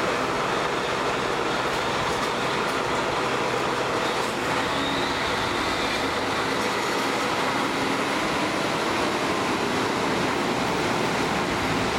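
Kashima Rinkai Railway 6000 series diesel railcar pulling out of the station, its diesel engine running under power and its wheels rolling on the rails as it moves past. The sound holds steady throughout, with a faint rising whine partway through.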